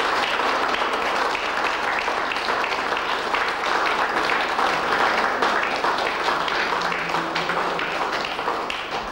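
A crowd applauding steadily, dying away near the end.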